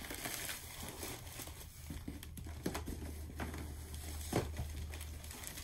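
Packaging crinkling and rustling as a case of metal cigar cutters is handled and pulled from a shipping box, with a few light knocks.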